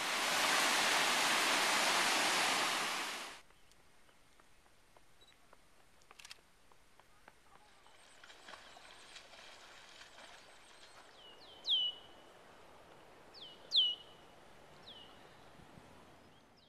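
A loud, steady rushing noise cuts off suddenly about three seconds in, leaving faint outdoor ambience. Near the end a bird gives several sharp chirps, each a quick downward sweep ending on a steady whistle; two of them are loud.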